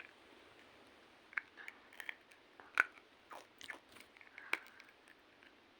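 A person chewing and crunching a hard sweet close to the microphone: a few faint, irregular crunches and clicks.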